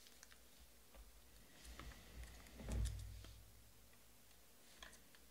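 Baseball trading cards being handled and flipped through by hand: faint clicks and rustles of card stock, with one soft low thump a little under three seconds in.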